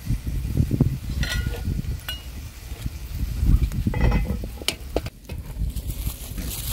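Metal clinks and knocks as a lid and ladle are set on a black cooking pot, the first couple ringing briefly, over a steady low rumble.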